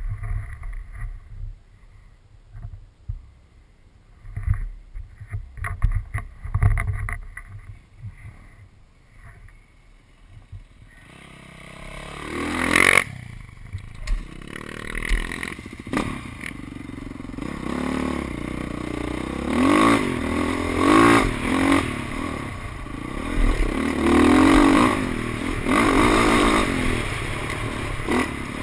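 Dirt bike engine heard through a helmet-mounted camera. For the first ten seconds or so it is quiet and low, with wind rumble and scattered knocks. About eleven seconds in it picks up and runs hard, its pitch rising and falling again and again with the throttle.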